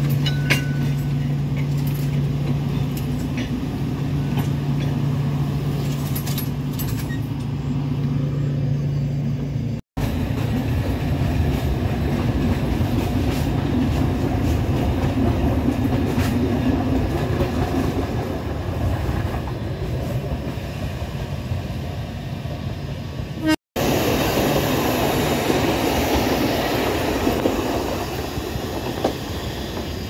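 Alishan Forest Railway diesel-hauled train running past on narrow-gauge track: a steady low engine hum at first, then the rumble of the cars' wheels on the rails. The sound cuts out abruptly twice, at about ten seconds and again near the last quarter.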